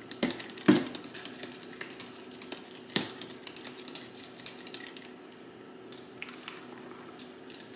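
Kitchen clatter: irregular small clicks and a few sharp knocks of utensils and a plastic container being handled while an ice cream base is mixed.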